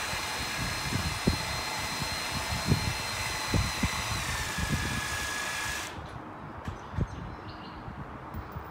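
A small motor whines steadily at a high pitch, with scattered light knocks, and cuts off abruptly about six seconds in; a few faint knocks follow.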